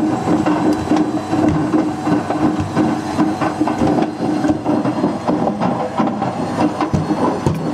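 Hard loose objects tumbling and clattering inside the turning drum of a Whirlpool WWDC 7210/1 washing machine: a continuous jumble of knocks and rattles over a steady hum.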